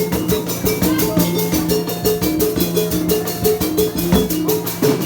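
Obrog street-ensemble music: a fast, steady drumbeat under a short melodic figure that repeats over and over.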